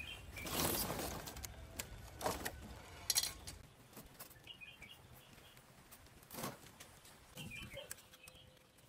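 A few short rustling and scraping noises as an old wooden table frame is handled and turned over. Faint bird chirps come through in the background.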